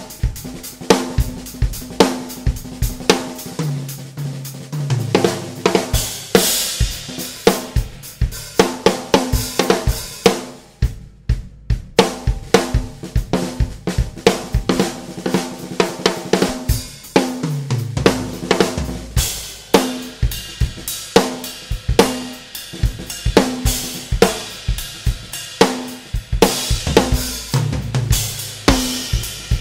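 Drum kit grooving, showing off a Mapex Black Panther 14×5.5 snare drum at medium tuning, with hi-hat, cymbals and bass drum. There are a few fills and a brief break about eleven seconds in.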